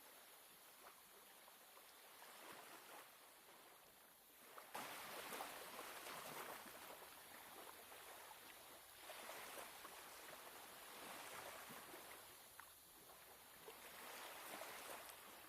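Faint sea waves washing ashore, the wash swelling and easing every few seconds; about five seconds in it turns suddenly louder and fuller.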